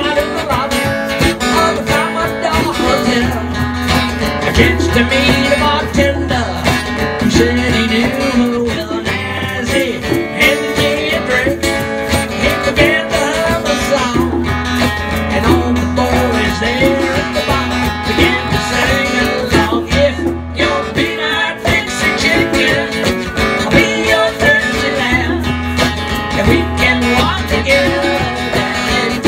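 Live acoustic band playing an instrumental stretch of a country-rock song: strummed acoustic guitar with a steady bass line and hand percussion from a shaker and conga.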